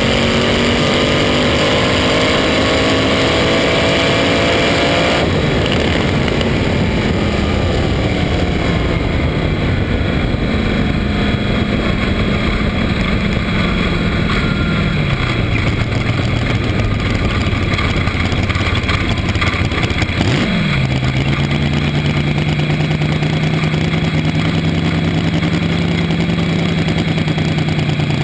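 Slingshot dragster's engine at full throttle, its pitch still climbing near the end of a quarter-mile pass, then cut back abruptly about five seconds in as the throttle is lifted. The engine then winds down as the car coasts, with heavy wind rush on the onboard microphone, a quick throttle blip about twenty seconds in, and a steady low idle after it.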